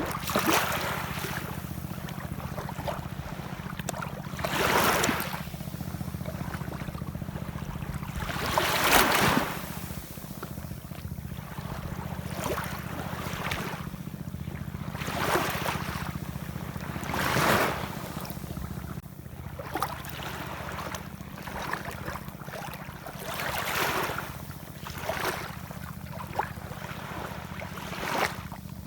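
Ocean waves washing and splashing in repeated surges every few seconds, a few of them louder, over a steady low rumble.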